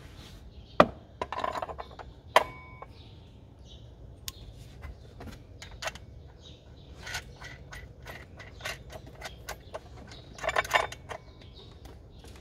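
Metal clinks and clicks of a bolt, pulley and tools being handled while an idler pulley is fitted onto the engine. Two sharp clinks in the first few seconds, the second ringing briefly, then scattered light clicks with a quick flurry near the end.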